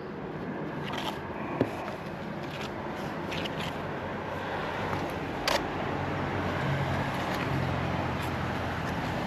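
A motor vehicle engine running nearby, its low hum growing louder over the last few seconds, with several sharp clicks or taps scattered through it.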